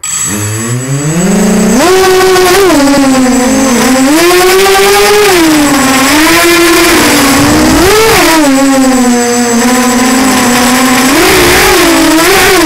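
Walkera Runner 250 racing quadcopter's brushless motors and propellers, heard close up from the craft itself: the whine spins up sharply as it takes off about a second in, then rises and falls again and again with the throttle as it flies.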